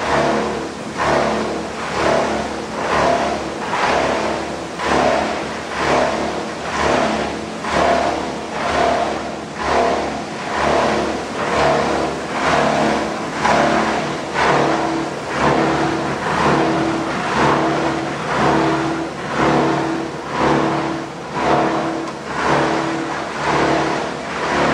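A PET bottle washing line running: mixed machine noise with a few steady tones, swelling and falling in a regular pulse about once a second.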